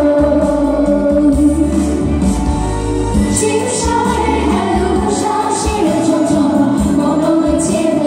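Women's voices singing a Chinese pop song together into handheld microphones, over a backing track with a recurring bass pulse.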